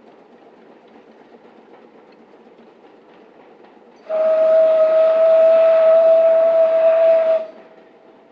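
Narrow-gauge steam locomotive whistle: one steady blast of about three seconds, starting about four seconds in, over the low running noise of the train.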